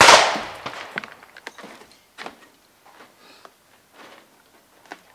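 A single shotgun shot right at the start, its report dying away over about a second. After it come soft rustles and a few small clicks and knocks, the sounds of clothing and handling.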